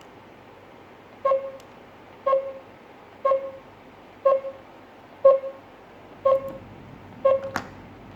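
GSM alarm system control panel sounding short beeps once a second, seven in a row, with a sharp click near the end.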